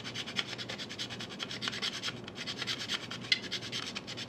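Quick, repeated scraping strokes of a small metal tool shaving plastic off a plastic model locomotive shell, many strokes a second.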